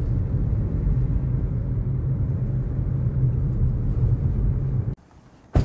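Steady low road rumble inside a moving car's cabin, cutting off abruptly about five seconds in; a single sharp click follows near the end.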